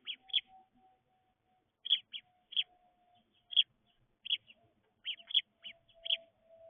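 House sparrows chirping: a string of short, sharp cheeps at irregular intervals, about two a second.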